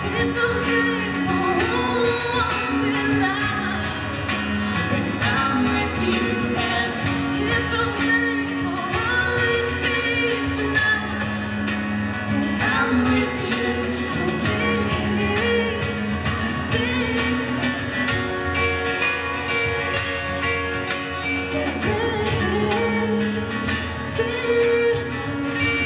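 A woman singing a song while accompanying herself on an acoustic guitar, performed live.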